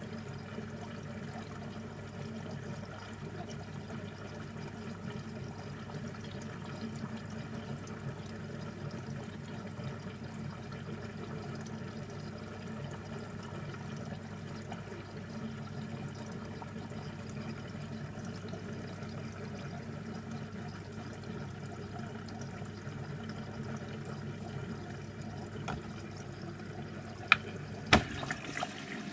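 Beko washing machine on a cottons cycle with water running and sloshing in the drum, a steady low hum underneath. A few sharp clicks come near the end.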